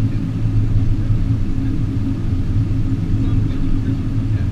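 Small outboard motor idling steadily, a loud low hum with no change in speed.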